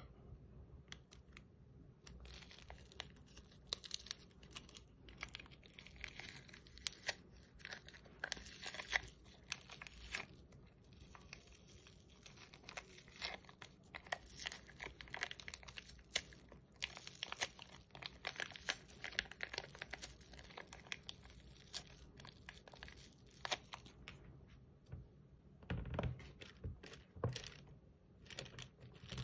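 Hands squishing and kneading slime, giving a fine crackle of many small clicks and pops that comes thicker in patches, with a few heavier squelches near the end.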